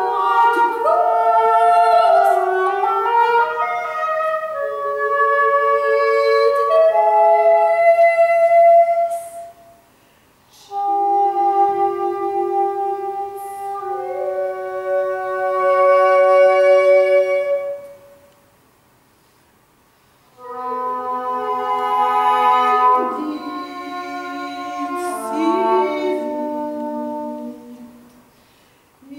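English horn playing a solo line of held notes, with a few bends in pitch. The notes come in three phrases, with a short pause and then a longer one of about two seconds between them.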